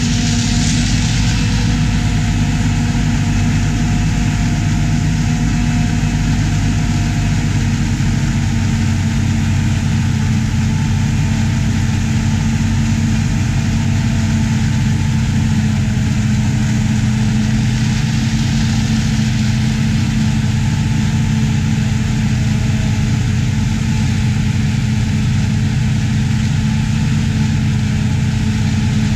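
Heavy diesel machinery running steadily at a constant pitch: a Claas Jaguar 870 self-propelled forage harvester chopping corn for silage, with a tractor pulling the forage wagon alongside.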